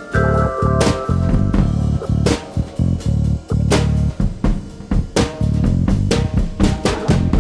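Background music: a band track with drum kit, bass guitar and guitar playing a steady beat.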